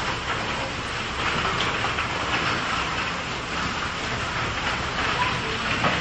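Large hailstones pelting wet pavement and nearby surfaces: a dense, steady clatter of countless small impacts.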